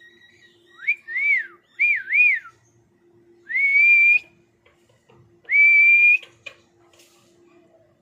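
Indian ringneck parakeet whistling. First comes a run of quick up-and-down whistles, then two longer whistles that rise and hold steady, about two seconds apart.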